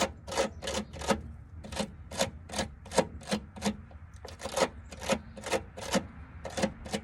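Hand wire brush scrubbing corroded battery cable ends, in quick back-and-forth scraping strokes about two or three a second, cleaning off old acid and dirt. The strokes pause briefly about four seconds in.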